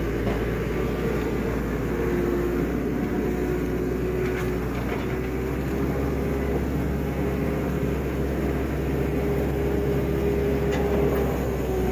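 An engine running steadily at an even speed, with a held drone that wavers slightly in pitch. A few faint knocks come through, around four seconds in and again near the end.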